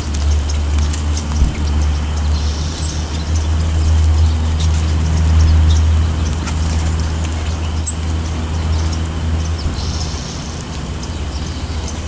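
Low steady rumble of a motor vehicle engine, swelling to its loudest around the middle and easing off near the end, with a few faint high bird chirps over it.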